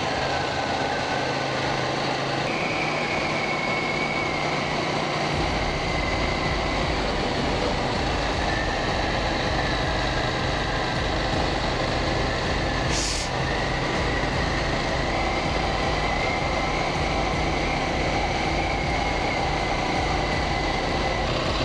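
KTM 790 Duke's parallel-twin engine running steadily at a low, even pace while riding. A low rumble of road and wind noise joins about five seconds in, and there is one brief high hiss near the middle.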